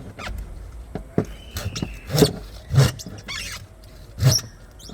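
Knife cutting a large jack fish, giving a series of sudden knocks: three strong ones in the second half, with lighter taps between.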